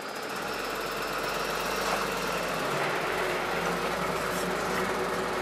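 Refrigerated box truck's engine running steadily, an even hum.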